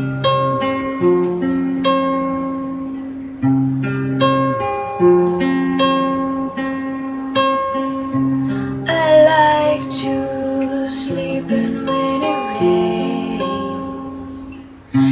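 Acoustic guitar strummed and picked in a song's intro, chords ringing one after another; a woman's singing voice comes in briefly about nine seconds in.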